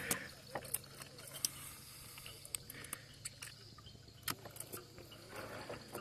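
Faint, scattered clicks and knocks of a gill net being handled and set out over the side of a boat, at irregular intervals over a low steady hum.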